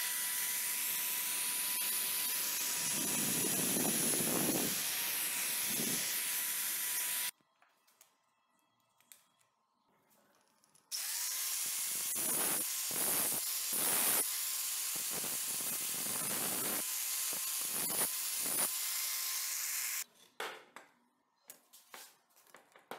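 An electric bench drill press runs for about seven seconds, drilling pin holes through wooden knife handle scales. After a short pause an angle grinder spins up with a rising whine and grinds off the metal pins sticking out of the handle, with repeated bites of the disc, for about nine seconds before stopping; a few light handling clicks follow.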